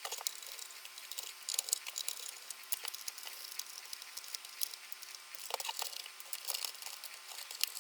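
Small screwdriver clicking and scraping as screws are undone from a Video8 camcorder's plastic casing, with a few light knocks from handling the case.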